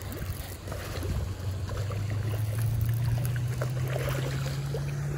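A hooked bass splashing and thrashing at the surface as it is reeled toward the bank, with scattered short splashes over a steady low hum that rises slightly in pitch.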